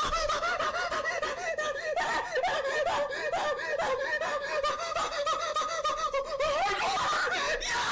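A young man laughing in a high, wavering, breathy giggle that pulses on without a pause.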